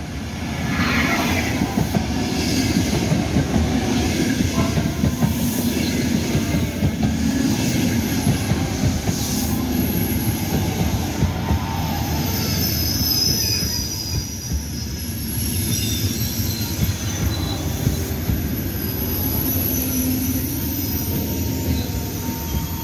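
Trenitalia Frecciargento electric passenger train passing close by at speed: a loud, steady rush of wheels on the rails that swells about a second in. From about halfway through, thin high squealing tones from the wheels ride over it.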